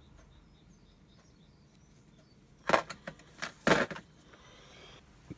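Plastic miniature bases and blister-pack packaging clattering onto a tabletop and being handled, with a few sharp clatters about halfway through after a quiet start. Faint bird chirps in the background during the quiet part.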